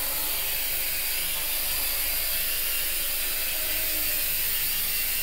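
J Perkins Twister mini quadcopter's electric motors and propellers whirring steadily at close range.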